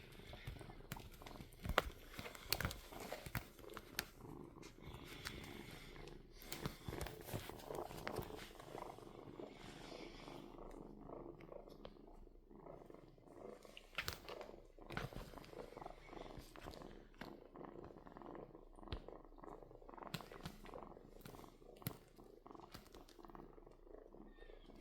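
Kitten purring steadily, close up, with scattered small clicks and rustles over it.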